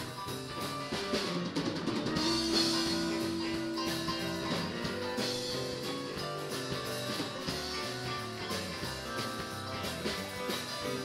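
Live band playing an instrumental passage on electric guitars, bass guitar and drum kit, with one note held for about two seconds near the start.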